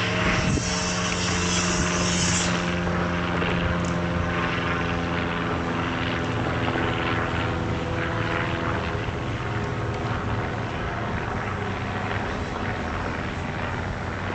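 An engine running steadily, a low drone of several even tones with a hiss over it.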